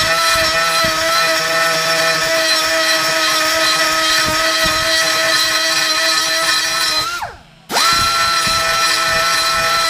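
Electric angle grinder running at steady speed. About seven seconds in, its pitch sags and the sound cuts out for about half a second before it is back at full speed.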